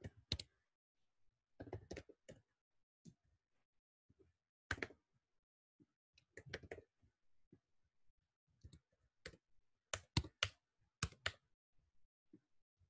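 Computer keyboard being typed on in short, irregular bursts of keystrokes with pauses between them.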